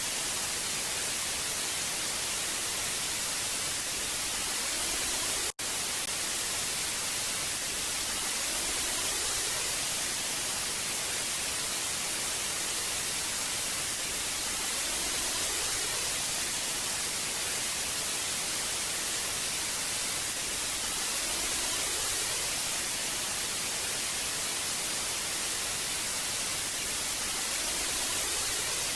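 Old analog TV static: a steady hiss, strongest in the high end, with a momentary dropout about five and a half seconds in.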